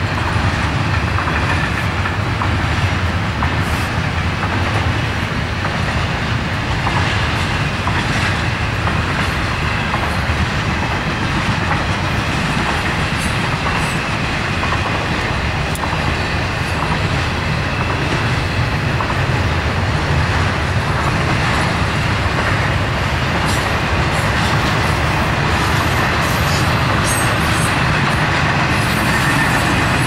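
Double-stack intermodal freight train's loaded well cars rolling past: a steady noise of steel wheels on rails.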